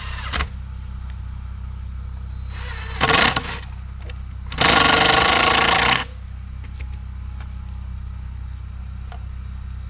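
A power tool run in two bursts, a short one about three seconds in and a longer one of about a second and a half, over a steady low hum.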